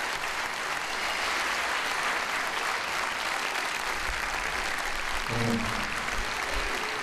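Theatre audience applauding steadily, with a short low tone sounding about five seconds in.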